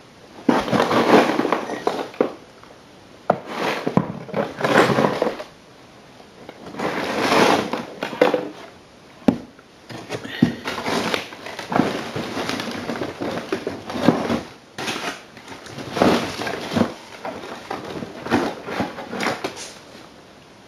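Irregular bursts of hard small objects clattering and scraping, each lasting up to a couple of seconds, as bits are handled and rummaged through.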